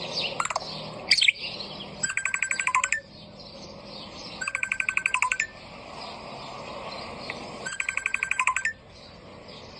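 Parrot mimicking an iPhone ringtone: a couple of quick rising chirps, then three bursts of a rapid electronic-sounding trill, each about a second long with short gaps between.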